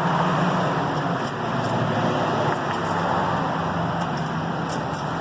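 Steady rumble of a running motor vehicle, with a few faint clicks as a key is worked in a door lock cylinder jammed by ice.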